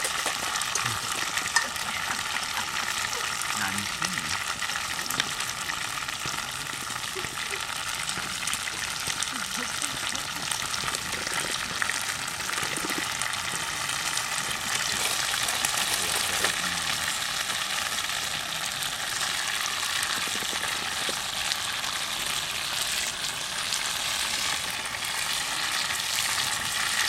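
Campfire crackling and hissing steadily, with a few sharp pops.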